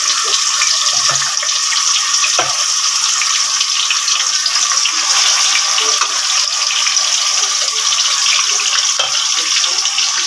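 Marinated beef slices sizzling in hot oil: a loud, steady hiss with fine crackling.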